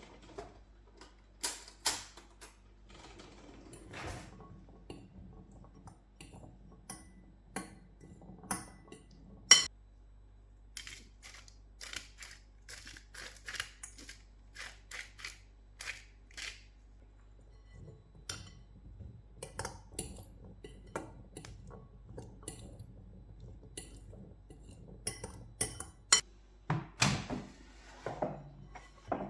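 Kitchen clatter of dishes and utensils: a long series of separate sharp clinks and knocks, some louder than others, over a faint low hum.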